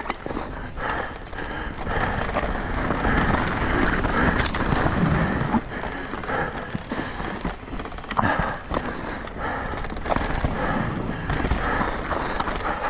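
Mountain bike riding fast down a dirt trail: steady tyre noise over gravel and rocks, with frequent knocks and rattles from the bike.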